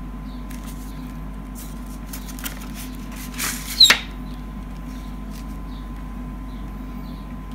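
Paper and plastic handling: a CD jewel case slid out of a parchment-paper envelope, with a brief rustle about three and a half seconds in that ends in one sharp plastic click. A steady low hum sits underneath, with a few faint ticks of handling.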